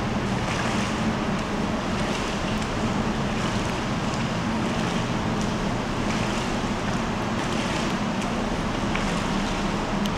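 Indoor pool ambience: a steady watery hiss over a low, even hum, with faint splashes from a swimmer's freestyle arm strokes and kicks.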